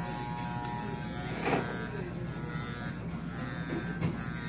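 Electric hair clippers buzzing steadily as they shave a man's head down to the scalp, with a couple of soft knocks along the way.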